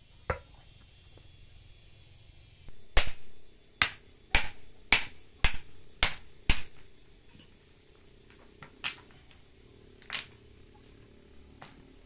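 Sharp knocks of stone on stone as slabs and small stones are tapped into place in a stone path: a run of about seven strikes, roughly two a second, then a few lighter taps.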